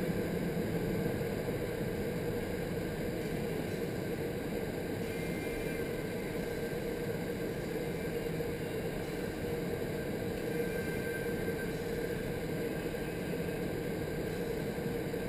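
Steady rushing roar of the airflow inside an indoor skydiving vertical wind tunnel's flight chamber, the fans driving air up through the chamber at a constant level.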